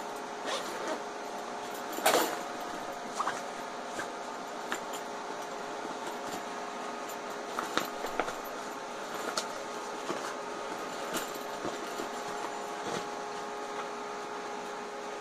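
Hands handling a nylon tactical backpack: fabric rustling and scattered light clicks of straps and buckles, with a louder rustle about two seconds in. A steady hum runs underneath.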